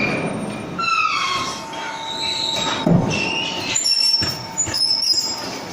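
Plant machinery running with high metallic squeals, some falling in pitch, over a steady whine and a few knocks.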